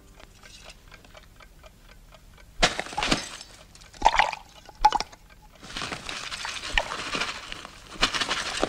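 Wooden spoon clicking lightly against an enamel bowl as a runny mixture is stirred, then a few louder knocks and a liquid plink about four seconds in. Near the end flour pours from paper packets into the bowl with a steady hiss.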